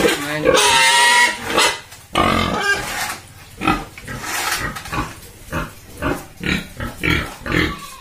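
Yorkshire pigs squealing and grunting: a long, loud squeal about half a second in, then shorter squeals and a quick run of short grunts through the second half.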